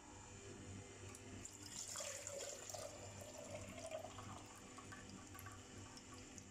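Pomegranate juice pouring from the opened spout of a Hurom slow juicer into a plastic jug. The trickle is loudest from about two to four and a half seconds in, over a faint steady hum.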